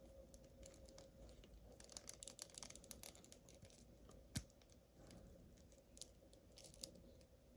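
Faint clicks and light rubbing of hard plastic action-figure parts being handled and fitted by hand, with one louder click about four and a half seconds in.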